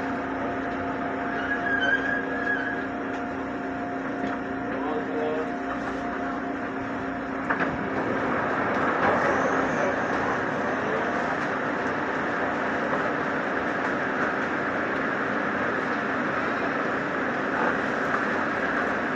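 Electric commuter train coming to a stop at a station: a steady whine over the running noise ends with a knock about seven and a half seconds in, and a steady rushing noise of the standing carriage follows.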